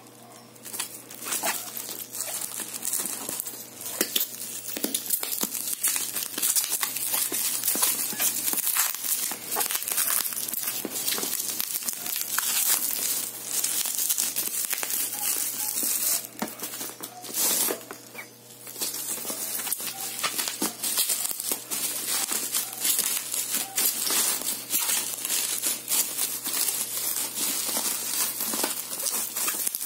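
Bubble wrap and clear plastic film crinkling and crackling as they are pulled open and peeled off a small cardboard box. The crinkling is continuous, with a short lull a little past halfway.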